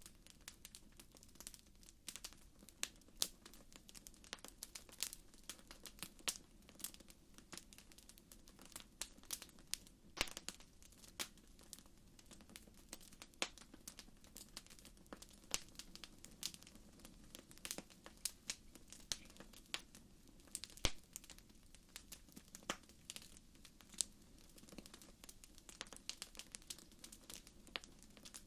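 Bonfire crackling, with irregular sharp pops and snaps of burning wood.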